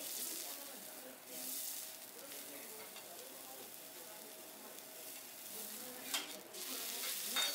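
Food sizzling on a hot teppanyaki steel griddle: a steady frying hiss that swells twice early on, with a few sharp clicks near the end.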